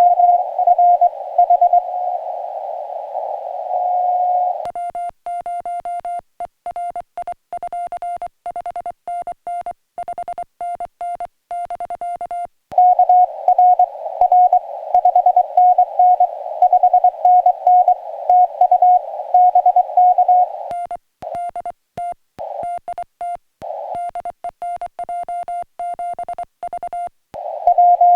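Morse code (CW) on a portable ham radio: a steady mid-pitched tone keyed in dits and dahs. Stretches of an incoming signal heard through band hiss alternate twice with the operator's own sending from the paddle, heard as a cleaner, quieter sidetone with silent gaps between the characters.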